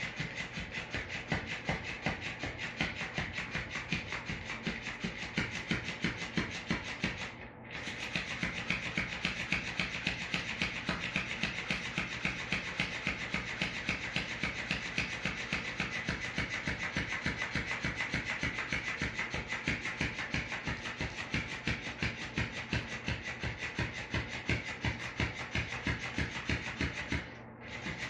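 Electric flopping fish cat toy running on a tile floor: its motor whirs and its tail flaps and slaps in a rapid, regular rhythm. It stops briefly about seven seconds in and again near the end.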